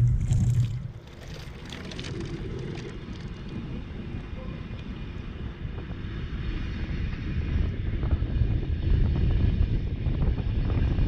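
Rhaetian Railway narrow-gauge train pulling away, a low rumble of wheels on rail that builds steadily as it gathers speed, with wind noise on the microphone. A loud low hum cuts off about a second in.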